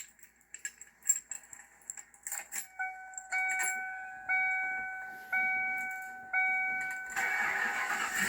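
Keys jangling and clicking at the ignition of a 1995 Ford Mustang GT, then the dashboard warning chime ringing about once a second. Near the end the starter cranks and the 5.0 V8 fires.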